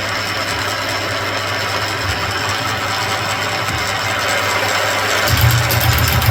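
Mill drill running with a tapping head fitted, a steady mechanical drone. About five seconds in, a deeper hum swells louder.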